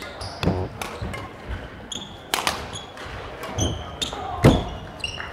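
Badminton rally echoing in a large sports hall: racket strikes on the shuttlecock every second or so, with short high shoe squeaks on the court floor and footfalls between them. The loudest strike comes at the very end.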